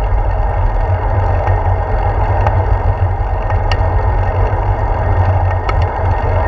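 Steady low rumble of wind and tyre-on-pavement vibration picked up by a handlebar-mounted GoPro on a moving bicycle, with a few light ticks.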